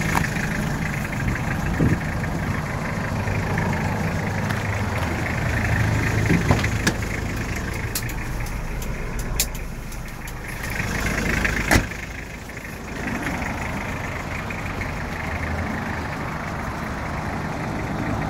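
Toyota Townace's 2-litre diesel engine idling steadily, with a few sharp clicks over it, the loudest about twelve seconds in.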